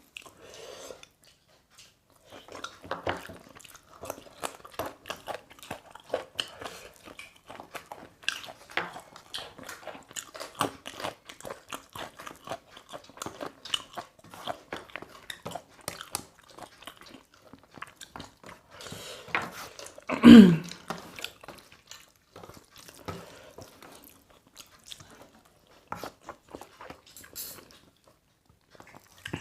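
Close-up chewing, biting and crunching of a chicken meal, with irregular wet mouth smacks and clicks. About two-thirds of the way through comes one short, louder sound that falls in pitch.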